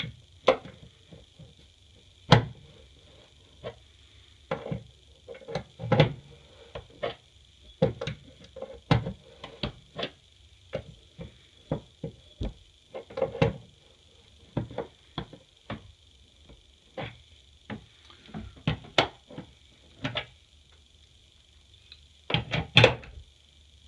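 Crescent wrench tightening the valve-stem nuts on a two-handle Delta bathroom faucet: irregular metal clicks and knocks as the wrench is set on a nut, turned a little and reset again and again, with a cluster of louder knocks near the end.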